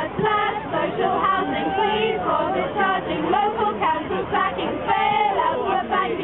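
Small group of carol singers, mostly women's voices, singing a Christmas carol together without accompaniment.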